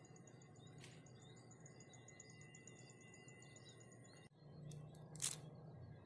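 Faint steady high-pitched insect drone with small bird chirps. It breaks off abruptly about four seconds in, and a single short sharp noise, the loudest thing here, follows about a second later.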